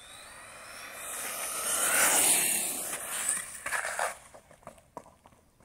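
HSP Wolverine RC truggy with a brushless motor speeding along asphalt toward and past, its motor whine and tyre hiss swelling to a peak about two seconds in, then fading away by about four seconds.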